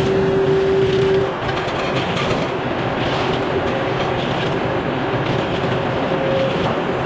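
Sawmill running: a steady, loud mechanical noise, with a steady hum that drops away about a second in.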